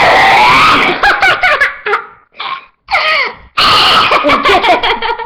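Loud laughter in several bursts, the loudest right at the start and again from about three and a half seconds in.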